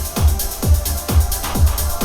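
Electronic dance music with a steady four-on-the-floor kick drum, about two deep thumps a second, played loud through a Bose L1 Pro8 portable column PA speaker.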